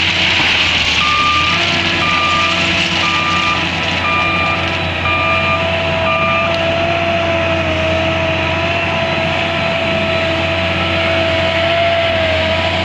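Wheel loader's diesel engine running steadily with a high whine, while its reversing alarm beeps six times about once a second, then stops partway through.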